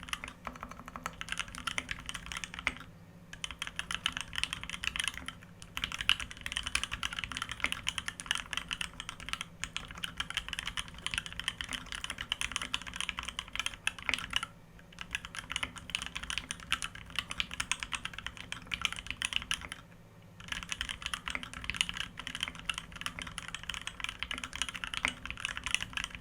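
Fast, continuous typing on a Foxlab Key65 custom mechanical keyboard with Krytox 205-lubed Thic Thock Marshmallow linear switches, an aluminum plate and GMK keycaps: a dense stream of keystrokes with a few brief pauses.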